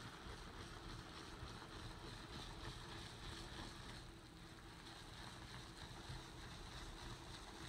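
Faint, steady rubbing of rubber-gloved hands working a white powdered cleaner into carpet.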